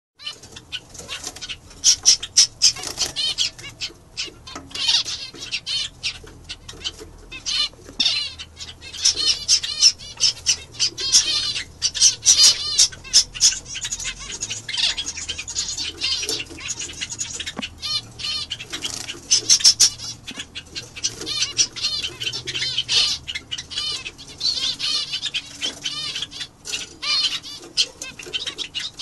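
Caged zebra finches calling: a busy, continuous run of short, nasal chirps in quick bursts, with brief pauses between bursts.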